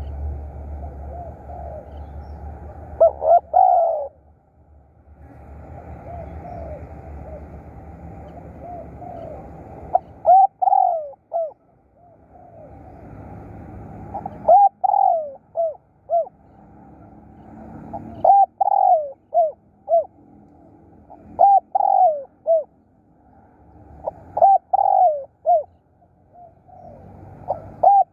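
Spotted dove cooing: seven short phrases of three to five coos each, spaced several seconds apart. A low rumble underlies the first few seconds.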